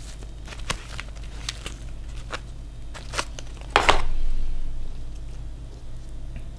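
Sticky rice being pulled apart by hand from a woven bamboo sticky-rice basket: soft rustles and small clicks of the basket and rice, with a louder scrape about four seconds in, over a steady low hum.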